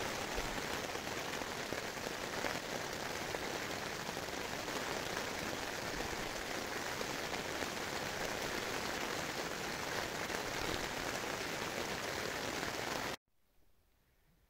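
Steady rain falling on the fabric of a dome tent, heard from inside the tent; it cuts off suddenly near the end.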